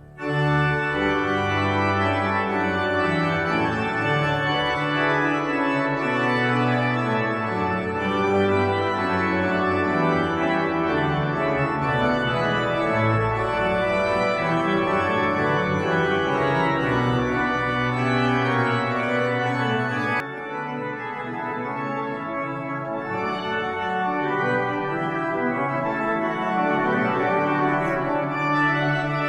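Cathedral pipe organ playing full sustained chords over deep pedal notes. About twenty seconds in the bass notes drop out and it plays a little quieter.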